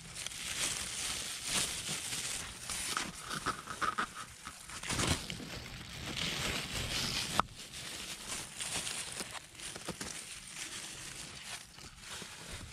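Rustling and crinkling of a plastic-bag-covered hand and dry leaves as fertilizer is sprinkled and worked into the soil around a plant's base, with one sharp click a little past the middle.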